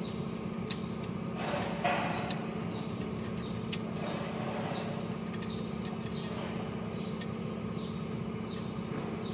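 Scattered light metal clicks and clinks of a ring spanner and screwdriver working the valve-clearance adjusting screws and locknuts on a Mitsubishi 4N15 diesel's rocker arms, over a steady low hum.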